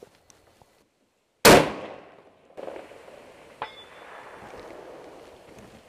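A single rifle shot from a scoped bolt-action rifle about a second and a half in. About two seconds later comes a short, high ring: the bullet striking a small steel gong target 550 yards away.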